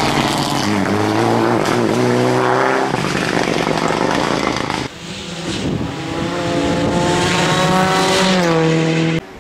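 Rally car engines accelerating hard, revs climbing in rising sweeps: first a Mitsubishi Lancer Evolution rally car pulling away out of a bend, then after an abrupt cut about five seconds in, a second rally car revving up the same way.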